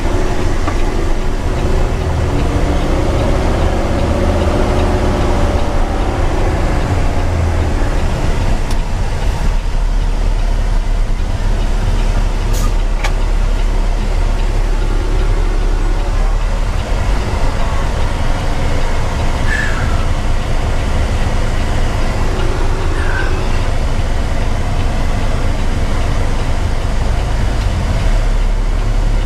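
Heavy Peterbilt 389 rotator tow truck driving at road speed, heard from inside the cab: a steady low diesel rumble with road noise.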